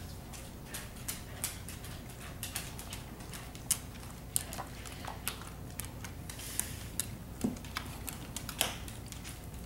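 Dogs' claws clicking and skittering irregularly on a hardwood floor as they play and wrestle, with a few louder sharp clicks.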